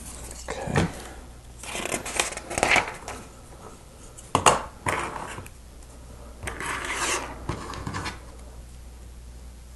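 Plastic Lego pieces clicking and scraping as they are handled and pressed together: a series of short clicks and rustles, the loudest click about four and a half seconds in.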